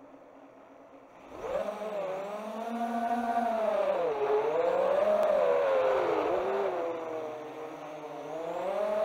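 FPV quadcopter's electric motors and propellers heard from its onboard camera. A faint steady hum, then about a second and a half in the throttle comes up for takeoff and a buzzing whine rises, its pitch wavering up and down with the throttle. It drops quieter near the end, then climbs again.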